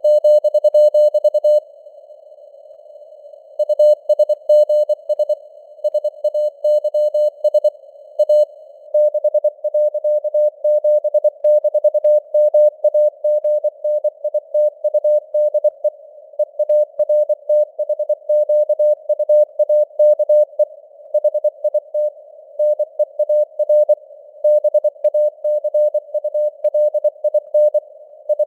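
Morse code sent at 24 words per minute as a single mid-pitched keyed tone, a rapid run of dots and dashes over a faint bed of simulated radio noise. The keying stops for about two seconds near the start, then runs on without a break.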